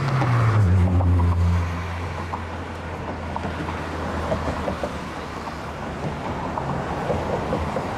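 A motor vehicle passing close by on the bridge: its low engine hum is loudest at first, drops in pitch about half a second in as it goes past, and fades after about a second and a half, leaving a steady traffic rumble under a hiss of noise.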